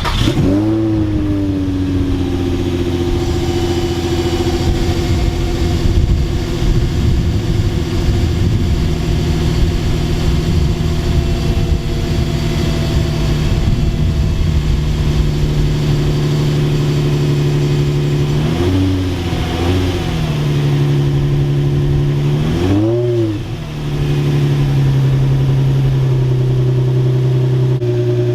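Infiniti G35's 3.5-litre V6 running through its stock exhaust with new tips: just started, it settles to a steady idle. About two-thirds of the way through it is blipped twice, then revved once more sharply, and drops back to idle.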